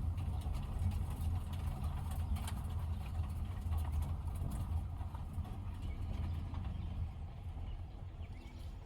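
Steady low rumble of a car's engine and road noise, easing off slightly near the end.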